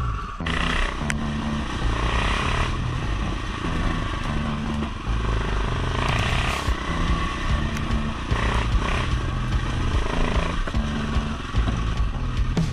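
Trail motorcycle engine running while riding, with backing music with a stepped bass line underneath.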